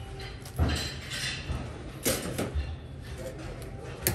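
Stainless-steel wire grill rack and fastening wire clinking and rattling as they are handled and twisted tight with pliers. A few sharp metallic clinks: one about half a second in, two around two seconds, and one at the end.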